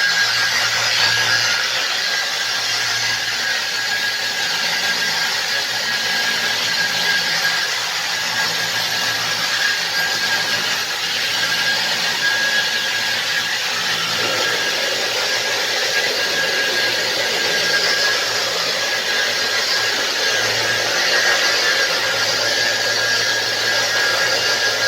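Electric polishing machine running steadily as it sands a marble countertop: a constant grinding hiss with a steady high whine and a low motor hum.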